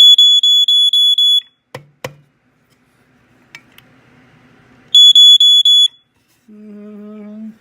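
FireX FXB-1A battery smoke alarm's horn sounding on its test button: a loud, piercing high-pitched tone pulsing about five times a second, in one burst of about a second and a half, then a second burst of about a second a few seconds later. A couple of clicks fall between the bursts, and a low steady hum runs for about a second near the end.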